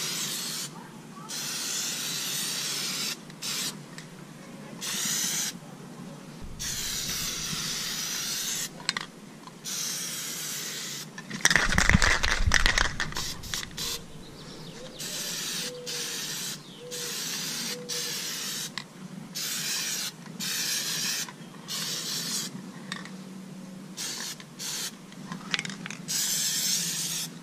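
Aerosol can of Plasti Dip rubber coating spraying in repeated hissing bursts with short pauses between them, laying a coat onto a grille. About twelve seconds in comes a louder burst of noise with a low rumble.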